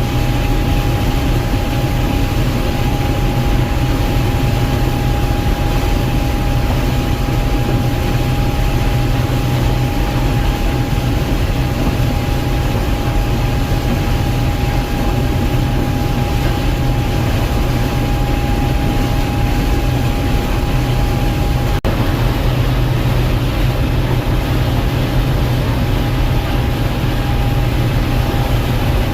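Gleaner M2 combine running steadily while harvesting corn: a loud, even machine drone with a constant whine over it.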